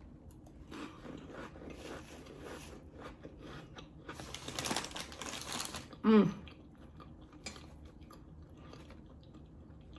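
Close-miked chewing and crunching of crackers with smoked oysters: many small crackly crunches, densest and loudest from about four to six seconds in. A brief vocal sound comes just after six seconds.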